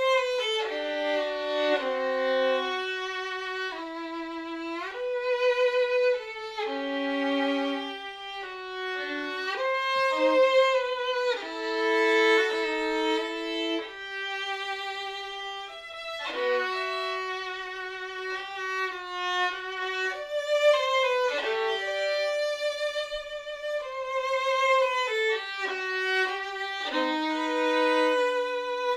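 Solo violin playing a slow melody of long bowed notes with vibrato.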